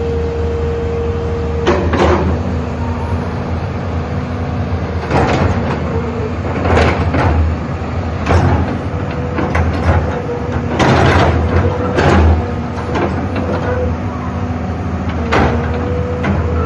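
SANY SY365H PRO crawler excavator running: a steady low engine drone with a constant hum, broken every second or two by short rushes of noise as the machine works.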